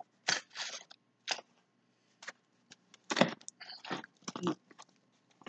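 A small sealed cardboard shipping box being pried and torn open by hand: a string of short, irregular crunching and ripping sounds as the doubly glued flaps resist.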